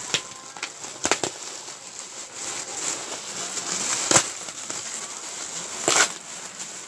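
Plastic parcel wrapping being pulled and torn open by hand: steady crinkling broken by sharp cracks and rips, the loudest about four and six seconds in.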